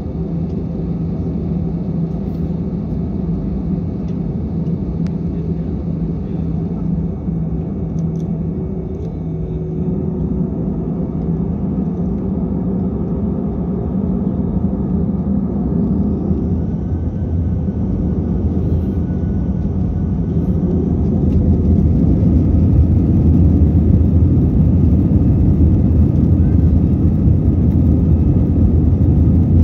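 Jet airliner's engines and airframe heard from inside the cabin as it rolls along the runway: a steady low roar that swells about halfway through and steps up again after about twenty seconds as thrust comes up for the take-off.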